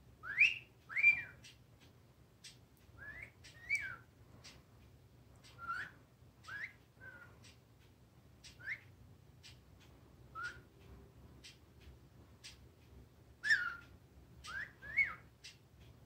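Blue-headed pionus parrot whistling: short sliding whistled notes that swoop up and down, in scattered clusters with pauses between. The loudest pair comes about a second in and another group near the end, with faint clicks in between.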